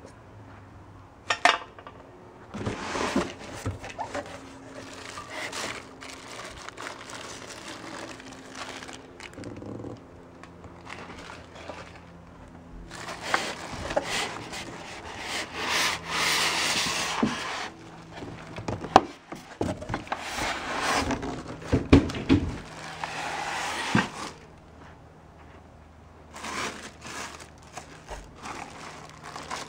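Plastic wrapping rustling and cardboard scraping as a plastic-wrapped benchtop belt and disc sander is pulled out of its shipping box, in irregular spells with a few sharp knocks.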